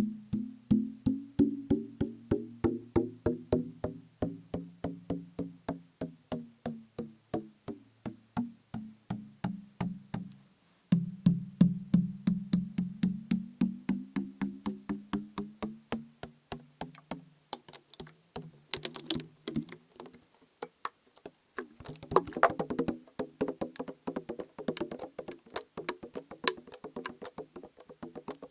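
Fingers tapping a plastic bottle partly filled with liquid in a steady rhythm of about four taps a second. Each tap gives a hollow, pitched knock whose pitch slowly shifts. After a brief stop about eleven seconds in, the tapping resumes, and in the last third it turns faster and irregular with a scratchier, noisier edge.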